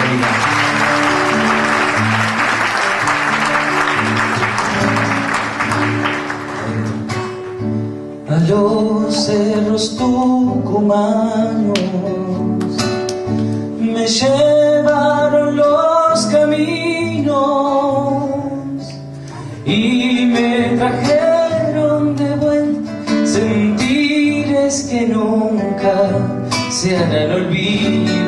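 Audience applause over strummed acoustic guitar for the first six or seven seconds, then a male voice singing a folk song to the guitar.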